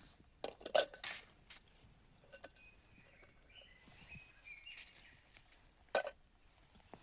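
Camp cookware and utensils clinking and knocking together: a quick run of sharp clinks in the first second and a half, a lone one a little later, and a last one about six seconds in.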